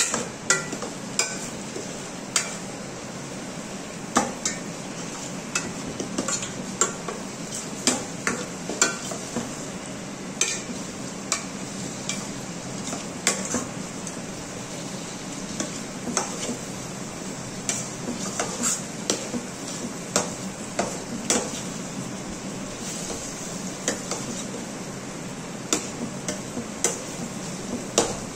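A metal spoon scraping and clinking against a stainless steel pan as egg fried with onion and tomato is stirred, in irregular knocks about once or twice a second, over a steady frying sizzle.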